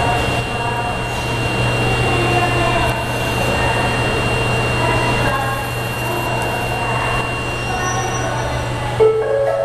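Subway platform ambience: a steady low hum from station ventilation and machinery with a faint constant high tone and indistinct voices. About nine seconds in, a public-address chime sounds with short rising tones, starting a platform announcement.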